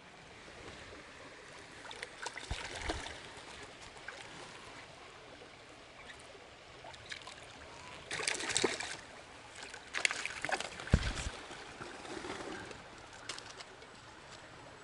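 A small river flowing steadily, broken by several short bursts of louder noise and a low bump about eleven seconds in.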